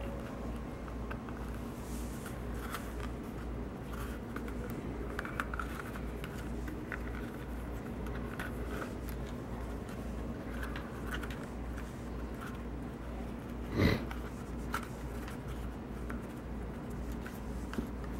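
Thread being drawn through stitching holes and a leather holster being handled during hand saddle stitching: faint scattered rasps and rustles over a steady low hum, with one sharper knock about three-quarters of the way through.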